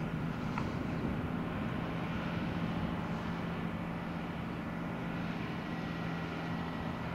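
Volvo A25D articulated dump truck's diesel engine running at a steady, even note as the truck drives along the sand.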